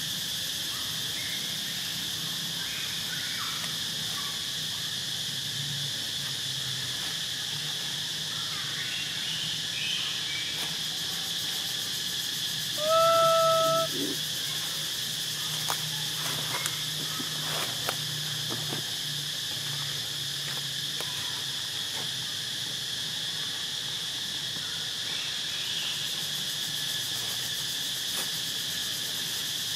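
Insects droning steadily in forest. A little under halfway through, a single loud steady-pitched animal call lasting about a second stands out, with a few faint short calls and clicks around it.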